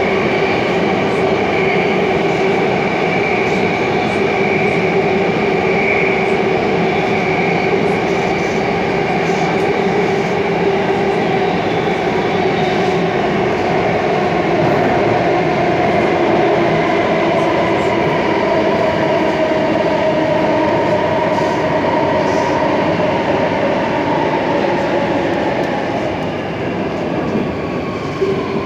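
Interior running noise of a C751C metro train in a tunnel: a steady rumble and rush of wheels on rail with a held traction-motor whine. In the second half the motor whine slides down in pitch as the train slows.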